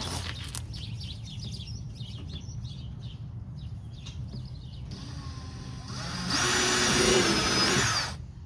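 Power drill running for about two seconds, drilling a mounting hole upward for a front lip, with a steady whine that cuts off sharply. Light handling clicks and rustles come before it.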